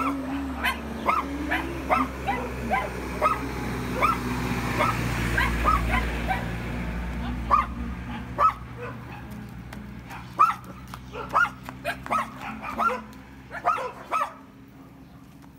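A dog barking in short, high yips, about two a second, with a brief pause near the middle before it starts again. Under the first half a low steady rumble swells and then fades.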